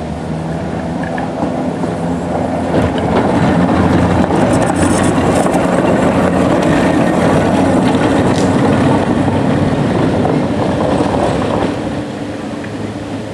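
Vintage electric tram passing close by, its running gear and wheels on the rails making a steady rumble. The sound grows louder as the tram passes, about three to eleven seconds in, with a few light clicks at the closest point, then drops away as it moves off.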